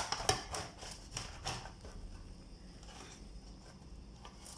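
Slotted spatula scraping and clicking against a metal roasting pan as roast chicken pieces are lifted out: a quick series of short scrapes in the first second and a half, then quieter handling with a few faint ticks.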